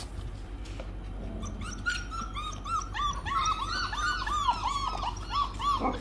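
Maremma sheepdog puppies, about five weeks old, whining and yipping in a quick run of short, high, arching calls. The calls start about a second and a half in and come four or five a second until near the end.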